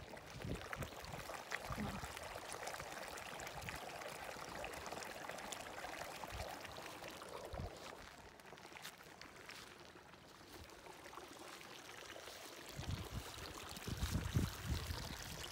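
A small mountain stream trickling and splashing over rocks, with scattered light footsteps through grass. Low thumps come through near the end.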